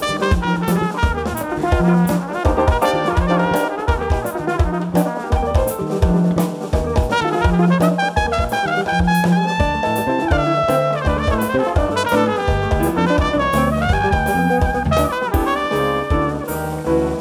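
Live band playing jazz, with a trumpet carrying the melody over saxophone, trombone, drum kit and bass guitar.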